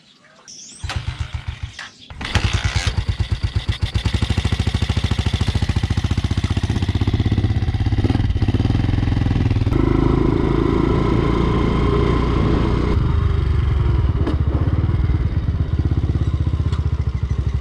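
Off-road motorcycle engine being started: it sputters briefly about a second in, catches just after two seconds, then runs loudly with a rapid, even firing beat.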